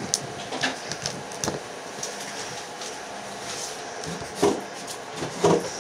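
Fingers picking gills and bits of shell off a cooked Dungeness crab: scattered small clicks and crackles of shell, with two louder handling noises near the end.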